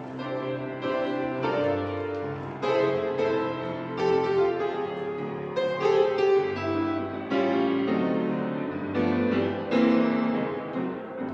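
Keyboard music: slow, sustained chords that change every second or so, the instrumental introduction to the entrance hymn.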